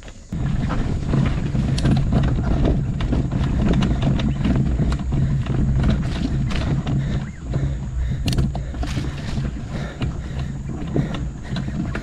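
Mountain bike riding fast over a dirt trail: wind buffeting the microphone and tyres rumbling, with frequent knocks and rattles as the bike runs over rocks and roots. It starts abruptly about a third of a second in.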